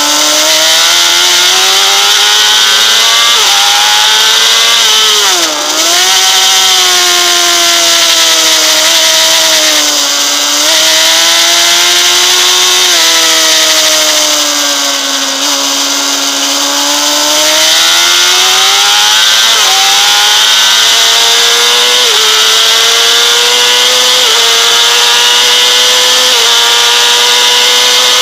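Honda CBR600RR's inline-four engine running high in the revs under hard acceleration, the pitch dropping sharply about five seconds in as it slows for a corner, then climbing again. In the last third it rises in steps through several upshifts. Heavy wind rush on the bike-mounted microphone throughout.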